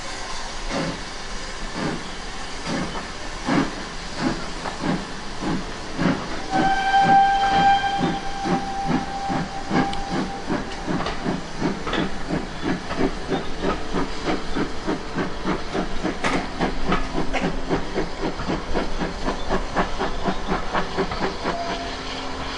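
Steam tank locomotive pulling away with a train of coaches, its exhaust chuffing in regular beats that quicken as it gathers speed. One long steam whistle blast starts about six seconds in and lasts about three and a half seconds.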